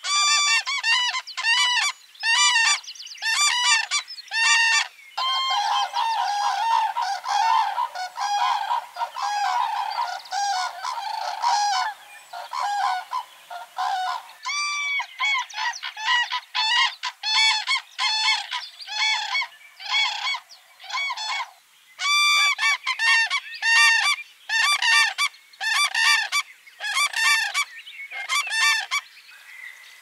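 Common cranes calling: a long series of loud, trumpeting calls at about two a second, with several birds overlapping in the middle.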